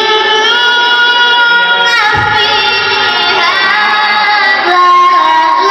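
A boy reciting the Qur'an in melodic tilawah (qira'at) style. He holds one long high note for about two seconds, then moves into an ornamented run of rising and falling turns and starts a new held phrase near the end.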